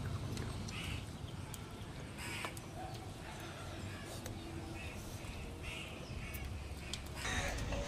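Crows cawing repeatedly in short calls, over soft eating sounds: small clicks of fingers working rice and fish on plates, and chewing.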